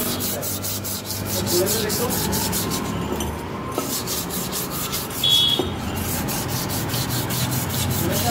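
Rhythmic rubbing strokes, about three a second, as the inside of a Maruti Suzuki Alto 800 rear brake drum is scuffed clean by hand, with a brief high squeak a little past halfway.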